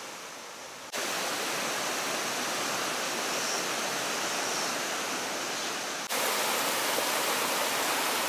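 Hot-spring water running down a tall rock face in many small cascades: a steady rush of falling water. It is fainter at first, then louder in two abrupt steps, about a second in and again around six seconds in.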